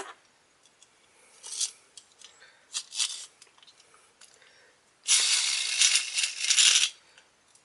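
Hard plastic Beyblade launcher parts being handled: a few light clicks, then about two seconds of dense plastic rattling and scraping near the end.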